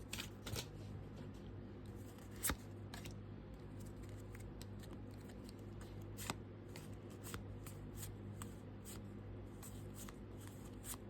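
Pokémon trading cards being handled and slid through one by one: soft, irregular flicks and slides of card stock, a few of them sharper.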